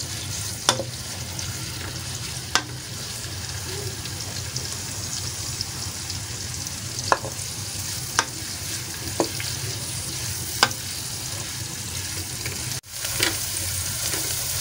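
Sliced onions sizzling in hot oil in a steel pan as they fry towards light brown, stirred with a wooden spoon that knocks against the pan about six times. The sound cuts out for a moment near the end.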